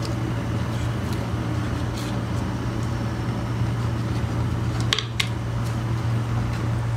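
Steady low fan hum with an even hiss over it, broken by a few faint clicks and one sharper click about five seconds in.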